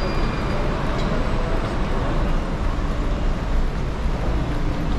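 Steady low rumble of road traffic and idling vehicles at a busy bus terminal forecourt, with general bustle.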